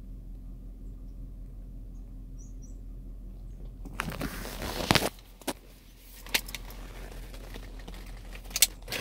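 A steady low hum, then from about four seconds in a second-long burst of rustling followed by a few sharp clicks, like something being handled close to the microphone.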